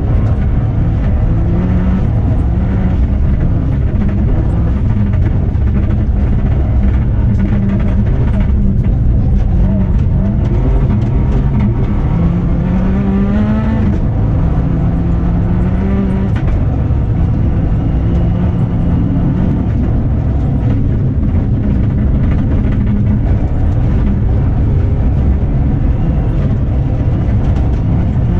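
Subaru Impreza N11 rally car's turbocharged flat-four engine heard from inside the cabin, driven hard on snow, over a heavy rumble of drivetrain and tyres. The engine note rises and falls with the throttle, climbing steeply about twelve seconds in and dropping back two seconds later, and the car is upshifted into fourth in the second half.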